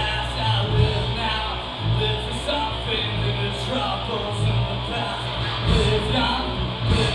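A rock band playing live: electric guitar, bass and drums, with some singing.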